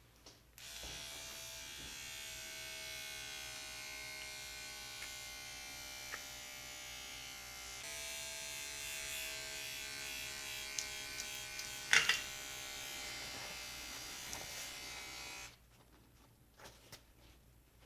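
A small electric tattoo machine buzzing steadily, its pitch sagging slightly as it runs; its tone shifts about eight seconds in and there is a sharp click about twelve seconds in. It switches off about fifteen seconds in, followed by a few light taps.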